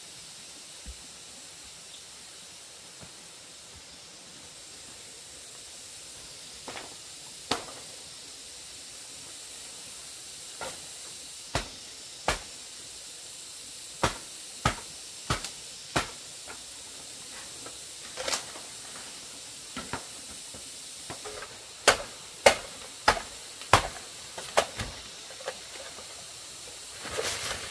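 Steady hiss of running stream water, broken from about seven seconds in by irregular sharp knocks that come more often and louder toward the end.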